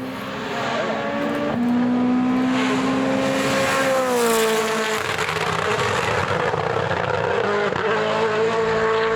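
Rally car engine running hard at high revs, its note holding and then dropping in several clear steps as the car shifts gear or lifts off.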